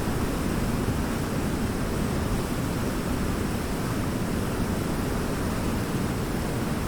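Waterfall: water falling and splashing in a steady, unbroken rush, deepest and fullest in the low range.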